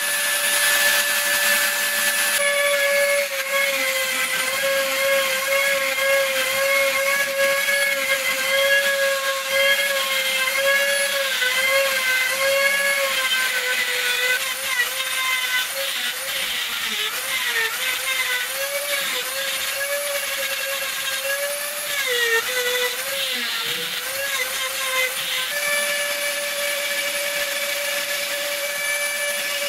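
Dremel rotary tool on a flex shaft running with a high steady whine, a diamond burr grinding wet stone. For most of the time the pitch wavers and dips as the burr is pressed into the rock, then it runs steady again near the end.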